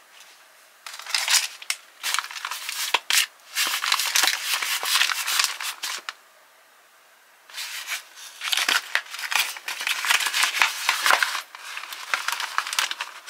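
Crinkling and rustling of an MRE entrée's cardboard sleeve and the pouch inside it as they are handled and flexed. It comes in a run of crackly bursts, with a quiet pause of about a second and a half midway.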